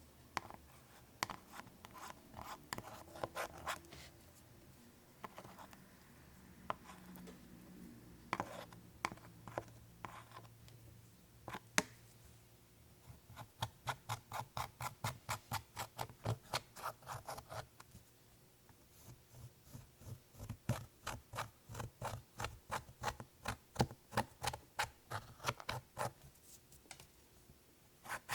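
Clear slime being kneaded and squished by hand, making sharp clicking pops: scattered at first, then in fast steady runs of several pops a second.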